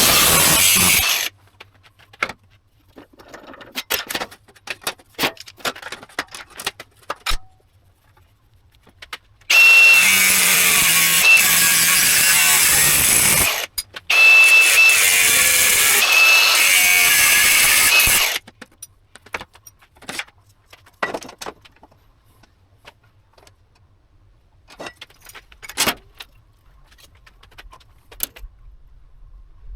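A handheld power tool running in loud bursts: one stops about a second in, then two runs of about four seconds each, with a steady high whine. Between the runs, metal parts and tools clink and clatter as they are handled.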